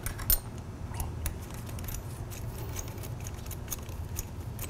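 Scattered light metallic clicks and taps from handling a motorcycle's front brake caliper as a pad retaining pin is worked out with a hex key.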